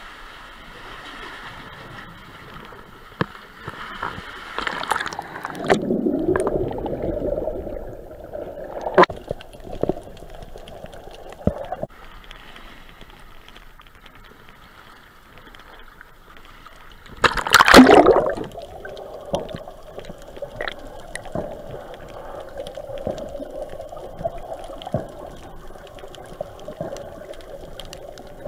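Seawater sloshing and gurgling around a camera held at and just under the water surface by a swimmer, with scattered small knocks and a loud splash a little past the middle.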